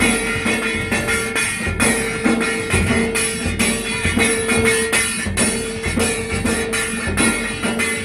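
Dhol drums beaten in a fast, dense rhythm, with a bright high shimmer and a steady held tone underneath that breaks off and returns every second or two.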